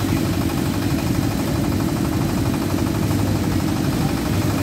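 Engine-driven pump running steadily, a constant low drone, pumping floodwater out through hoses.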